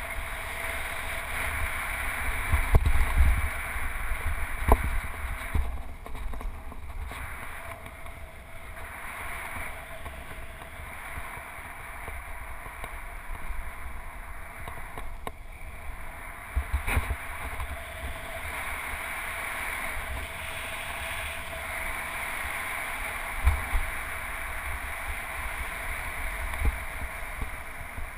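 Wind and tyre noise from a bicycle ridden on pavement, picked up by a handlebar-mounted GoPro, with a steady rush and low rumble. Several sharp thumps come as the bike rolls over bumps.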